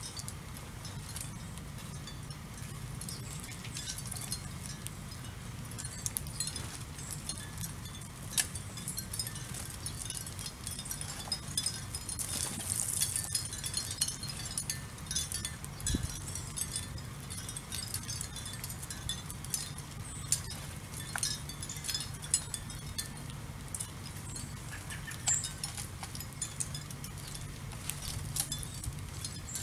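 Scattered short, high chirps and ticks of small birds over a steady low hum.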